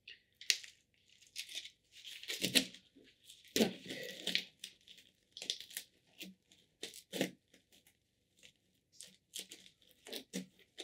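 Granular potting substrate being scooped and poured into a flowerpot: a run of short, irregular scraping and pouring noises.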